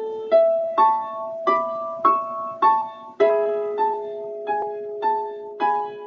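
Title music played on a piano-like keyboard: a slow melody of single struck notes, about two every second, each fading, over held lower chord notes.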